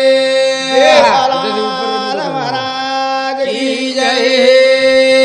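Men singing a Banjara devotional bhajan in a chanting style, the voice sliding between held notes over a steady sustained drone note.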